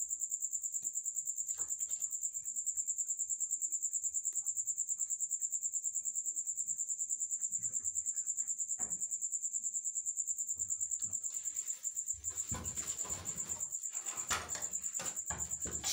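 Crickets chirping: a steady, high, fast-pulsing trill. From about eleven seconds in, rustling and scuffling noises join, with a knock near the end.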